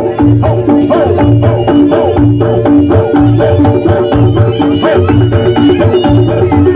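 Reog Ponorogo gamelan accompaniment: drums beating a steady, fast rhythm under a repeating figure of pitched gong notes.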